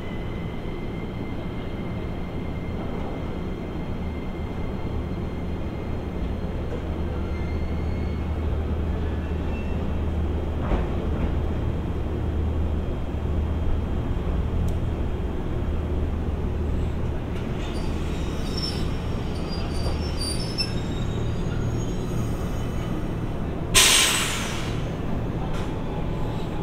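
Chichibu Railway 5000 series electric train, a former Toei 6000, pulling into the platform and braking to a stop, with a steady low hum. Brief high brake squeals come just before it halts, then a loud hiss of air lasting about a second near the end.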